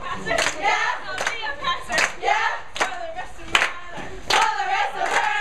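A group of girls chanting a team cheer together in unison, clapping their hands on a steady beat of roughly one clap every three-quarters of a second.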